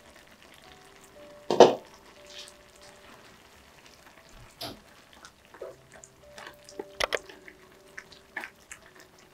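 Pot-and-spatula sounds from a non-stick saucepan: one knock about a second and a half in, then a spatula stirring soft cooked tomato and onion, with a few light taps and scrapes against the pan.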